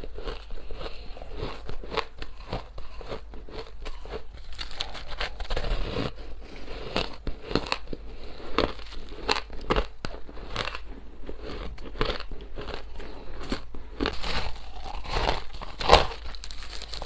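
Close-up crunching and chewing of a mouthful of crushed purple ice, a dense run of sharp crackles and cracks. A louder crunch comes about a second before the end as a fresh spoonful goes into the mouth.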